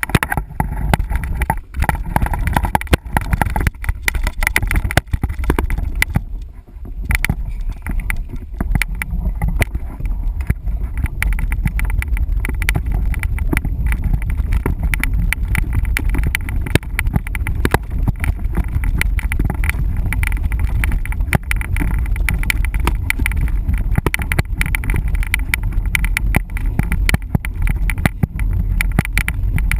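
Mountain bike rattling and clattering over a rough dirt trail, many quick knocks over a heavy low rumble, easing briefly about six seconds in.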